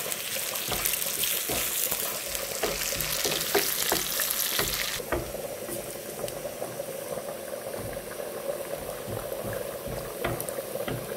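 Sliced onions sizzling as they brown in mustard oil in a nonstick frying pan, with a wooden spoon clicking and scraping against the pan as they are stirred. The sizzle is strong at first and drops abruptly to a softer hiss about five seconds in.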